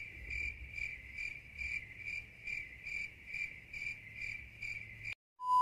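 Cricket chirping sound effect, the gag for an awkward silence: even chirps about two and a half times a second that cut off suddenly a little after five seconds. A steady high beep starts right at the end.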